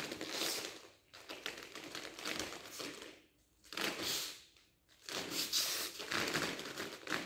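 Rustle and swish of cotton karate uniforms with bare feet shuffling on foam mats as two people move through a partner technique, in several short bursts separated by brief pauses.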